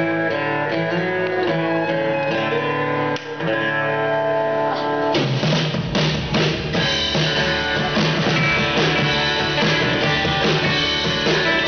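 Live rock band playing a song's instrumental intro on guitars, with the drums and bass coming in about five seconds in.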